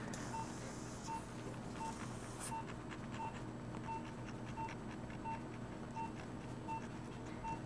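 Operating-room patient monitor beeping steadily, one short even-pitched beep about every 0.7 seconds, following the patient's heartbeat. Under it, faint scraping clicks of a coarse nasal rasp filing down the bump on the nasal bridge.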